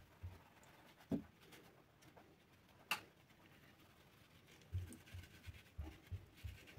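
Faint soft thumps of a wire-mesh flour sieve being shaken and knocked as flour is sifted through it. There are two sharper clicks in the first half, then a quick run of regular thumps, about three a second, near the end.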